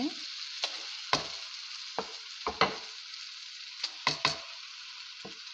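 Tadka of onion, tomato and spices sizzling in hot oil in a kadai. A spatula stirs it, with several sharp scrapes and knocks against the pan.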